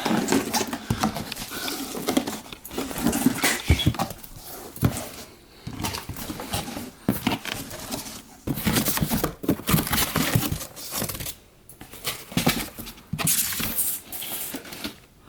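Cardboard box and plastic packaging being handled and rustled in irregular bursts as a coilover kit is unpacked, with parts knocking and shifting.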